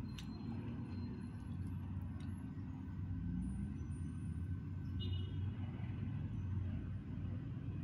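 Steady low background rumble, like distant traffic, with a few faint clicks and a brief high chirp about five seconds in.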